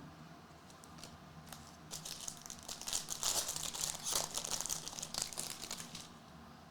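A trading-card pack wrapper crinkling and tearing as it is opened, a dense run of crackling mostly between about two and six seconds in.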